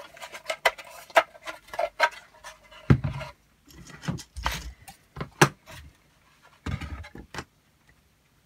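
Plastic robot-model parts being handled and fitted together on a workbench: a string of light clicks and knocks, with a few duller thumps about three seconds in, near the middle and about seven seconds in.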